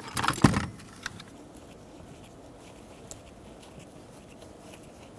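A short clatter of clicks and one sharp knock about half a second in as plastic door-panel parts are handled, then only faint small ticks.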